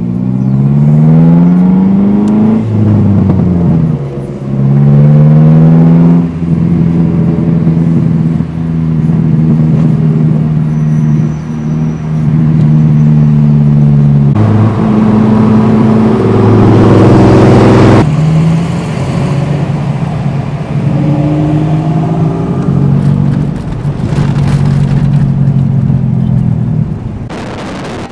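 A vehicle engine accelerating through the gears, heard from inside the cabin. Its pitch climbs and drops twice in the first few seconds as it shifts up, then it settles into a steady drone at cruising speed, with a few more changes in pitch. The sound drops away sharply about a second before the end.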